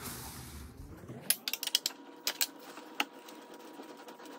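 Quick, irregular metallic clicks of a wrench working the EGT probe loose from the snowmobile's exhaust muffler, starting about a second in, over a faint steady hum.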